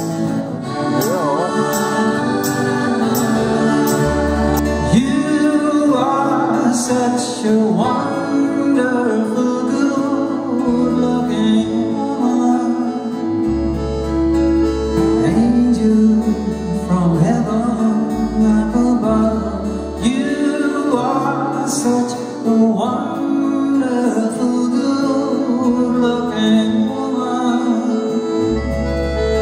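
Live band playing a pop song: acoustic guitars and accordion over bass and drums, with a man singing lead.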